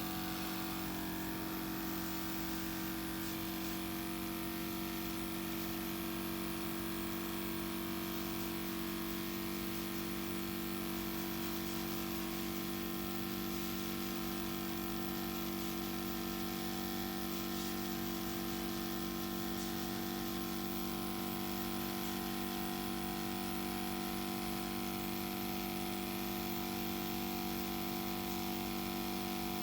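Airbrush compressor running with a steady hum that holds at one pitch and level throughout, with a faint air hiss above it.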